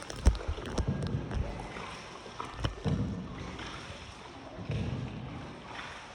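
Paddle strokes in water from a paddled tour boat, a swell of splashing about every two seconds, with a few sharp knocks of the paddle against the boat.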